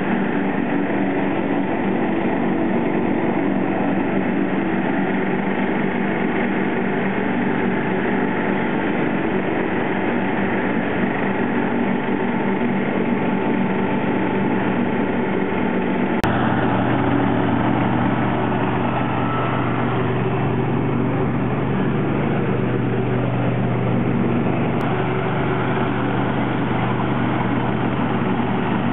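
John Deere 316 lawn tractor's 16-horsepower engine running steadily while mowing, its mower deck engaged. About halfway through the sound changes suddenly, from the sound at the driver's seat to the tractor heard from across the lawn, with a stronger low hum.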